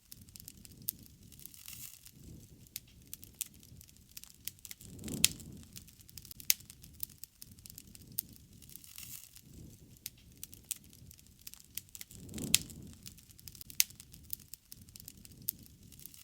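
Wood campfire burning, with irregular sharp crackles and pops over a soft low rustle. Twice the fire swells into a louder low rushing sound.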